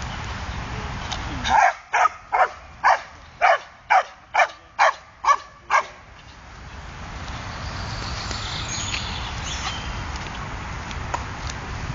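A podenco dog barking about ten times in a quick, even run, roughly two barks a second. The barks start a couple of seconds in and stop about halfway through, with a steady low background rumble before and after.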